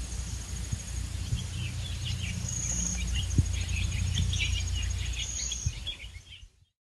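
Outdoor summer field ambience: a steady high insect trill, with birds chirping and a low rumble underneath, fading out near the end.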